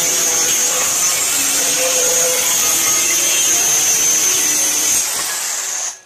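Handheld electric circular saw cutting through a wooden plank: a loud, steady cutting noise with a high whine. The whine rises in pitch about five seconds in as the cut finishes, and then the sound stops suddenly.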